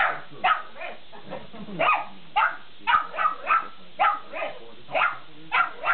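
Pug barking over and over, about a dozen short barks at roughly two a second, some coming in quick pairs.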